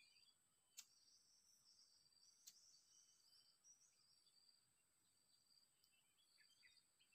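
Near silence: faint, high bird chirps and a steady thin high insect-like whine, with two faint clicks in the first few seconds.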